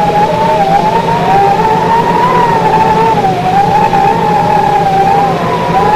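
Science-fiction sound effect on the opening credits: a wavering, siren-like electronic tone gliding slowly up and down, over a steady hiss and low hum.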